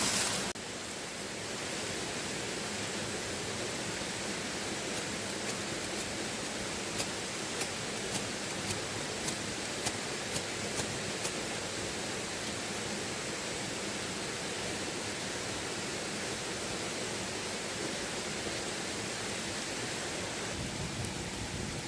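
Steady rushing of a river flowing, with a dozen or so faint sharp ticks between about 5 and 11 seconds in.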